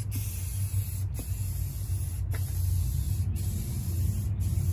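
Aerosol spray-paint can hissing steadily as paint is sprayed onto a car's body panel, over a steady low rumble.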